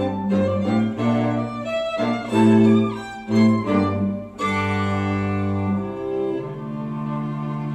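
String quartet music played back through Kaiser Acoustics Chiara loudspeakers: bowed strings with a prominent cello line holding long notes, and a fresh chord about four and a half seconds in.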